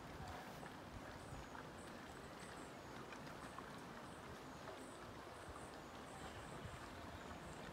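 Quiet outdoor ambience: a low, even rumbling noise with faint, short high-pitched chirps repeating every half second or so.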